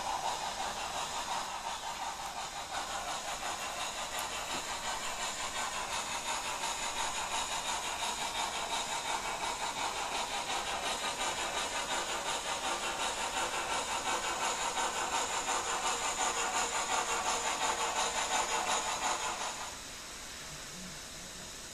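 Sound decoder of a TT-scale model steam locomotive playing steady rhythmic steam chuffing through its small speaker. The chuffing cuts off suddenly near the end, leaving a faint hiss.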